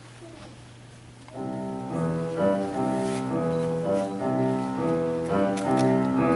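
Quiet room with a low hum, then about a second and a half in a piano begins playing chords: the accompaniment introduction before a choir comes in.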